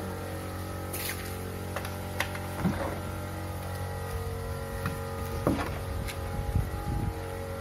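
Drawers of a wooden bed being handled, giving scattered knocks and clicks that are loudest in the second half, over a steady electrical hum.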